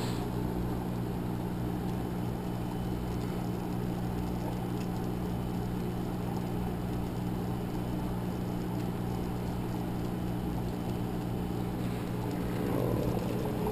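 Steady low electrical hum with a faint background hiss. About a second before the end, a brief louder noise.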